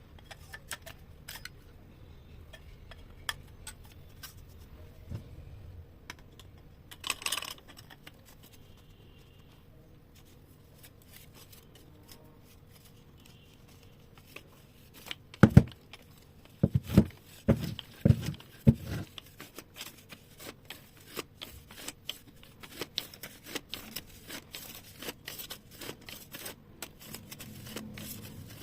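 Small hard parts being handled: scattered clicks, taps and light scrapes, with a run of about six loud knocks around the middle.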